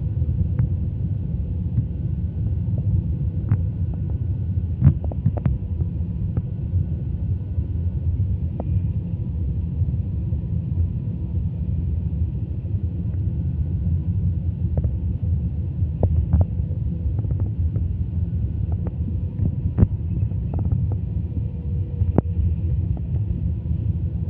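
Steady low rumble of a jet airliner's engines and airflow heard inside the passenger cabin, with occasional faint clicks and rattles.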